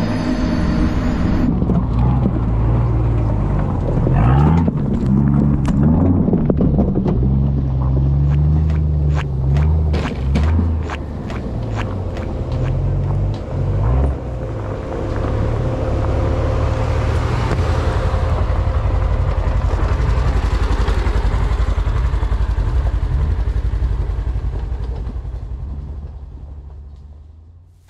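A vehicle engine runs and revs close by, its pitch shifting up and down. A run of sharp clicks and snaps comes in the middle, and the sound fades out near the end.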